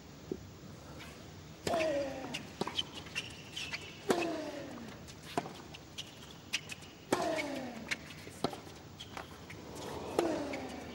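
Tennis rally: racket strikes on the ball about every second or so, each return answered from the other end. Every third second or so one player gives a short grunt, falling in pitch, as he hits.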